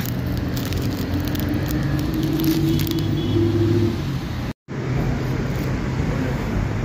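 Street traffic: a motor vehicle's engine running close by over a steady low rumble, its pitch climbing slightly over a few seconds. The sound drops out for an instant about two-thirds of the way through, then the traffic noise carries on.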